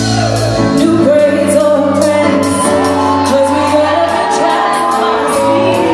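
Pop song with women singing over a steady drum beat, played loud through a theatre's sound system and ringing in the large hall.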